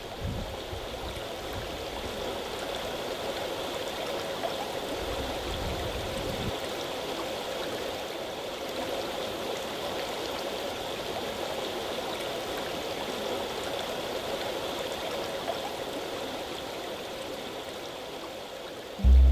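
Steady rushing of a river's flowing water, with a low rumble underneath during the first six seconds or so.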